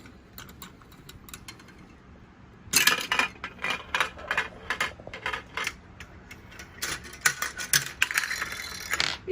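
Plastic parts and marble of a 2005 Mouse Trap board-game contraption clicking and clattering as the chain reaction runs, with faint ticks at first and a busy run of sharp clicks and rattles from about three seconds in.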